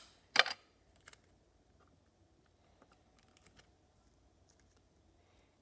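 Wooden popsicle sticks and Scotch tape being handled and pressed together: one sharp click about half a second in, a couple of smaller clicks, then faint scattered taps.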